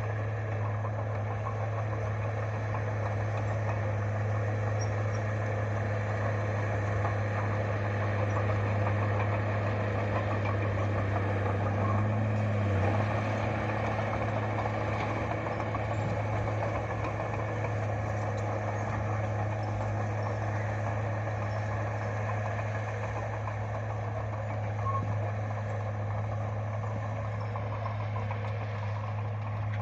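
Bulldozer's diesel engine running steadily with a deep hum, a little louder about halfway through.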